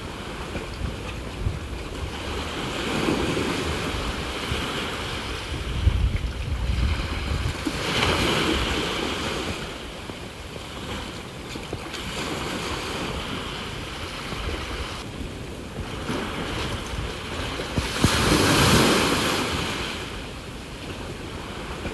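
Sea waves breaking and washing on the shore, the surf swelling and easing several times, with the loudest wave about two-thirds of the way through. Low rumbling from wind on the microphone comes and goes underneath.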